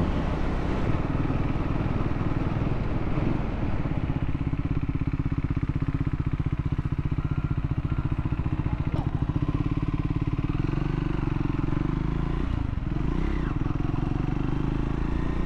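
Triumph Scrambler 400 X's single-cylinder engine running steadily while riding, its note shifting a little in the last few seconds.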